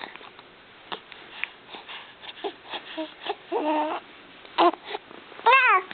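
Baby vocalizing in a series of short coos and whimpers, ending with a louder squeal that rises and falls in pitch near the end.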